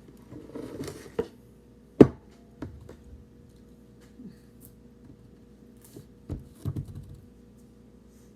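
Scattered sharp clicks and knocks, the loudest about two seconds in and a small cluster of them near the end, with a short rustle just before the first one.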